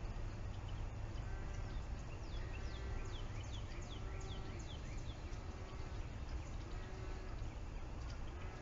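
An animal's short, low call repeated steadily about once a second. Partway through, a bird adds a quick run of high, falling chirps, over a steady low rumble.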